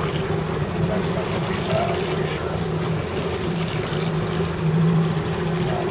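A fishing boat's engine running with a steady low drone, with wind and water noise around it.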